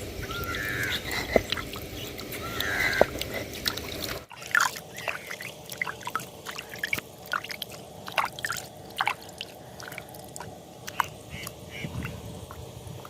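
Water poured into the grinder and sloshed about to rinse out the ground masala, with birds calling. About four seconds in, the water sounds stop abruptly and only scattered short bird chirps remain over a quiet background.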